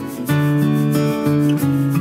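Background music: a strummed guitar, its chords changing every half second or so.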